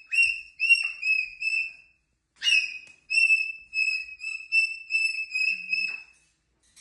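Cockatoo whistling a run of short, steady high notes: about five in the first two seconds, then a brief harsher squawk, then about nine more whistled notes that stop near six seconds.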